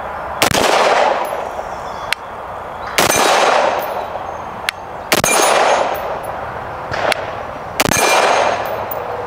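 Four single shots from a semi-automatic AR-15-pattern rifle in .223 Wylde/5.56, fired slowly about two to three seconds apart, each with a long echo that dies away over about a second. A faint sharp tick follows each shot about 1.7 seconds later.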